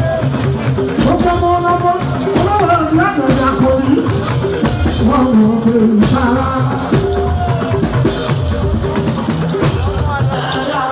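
Live fuji band music through a loud sound system: a voice singing over drums and percussion, running steadily.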